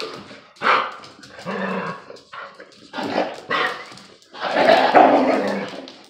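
Dogs barking in rough play, in a string of short bursts with the longest and loudest near the end.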